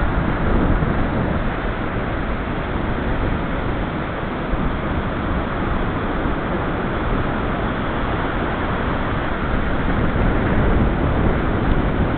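Ocean surf breaking and washing up a sandy beach: a steady rush of waves with a low rumble underneath, swelling slightly near the end.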